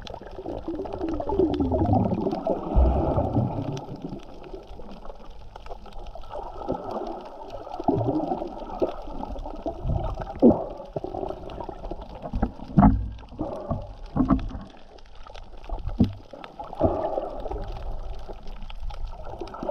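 Muffled water sound picked up by a camera underwater: sloshing and gurgling, with a wavering warble in the first few seconds and several short low thuds scattered through the middle.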